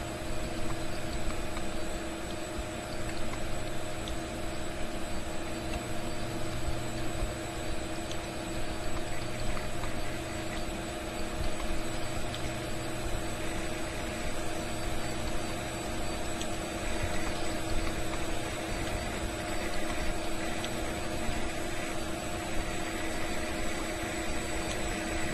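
A steady droning hum with two held low tones over a even hiss, unchanging throughout.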